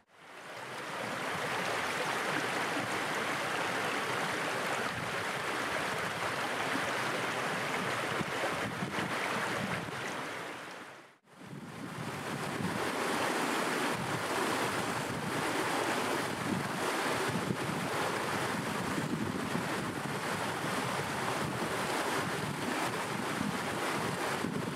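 Steady rushing of a small rocky upland stream running over stones and little cascades. The sound fades out briefly about eleven seconds in and comes back.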